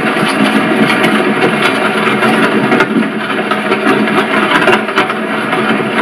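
Horse-drawn carriage in motion: a steady rumble and rattle with irregular clatter throughout.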